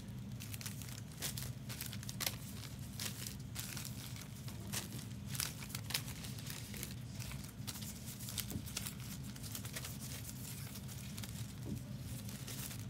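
Foil trading-card pack wrappers crinkling as they are handled, in scattered small crackles over a steady low hum.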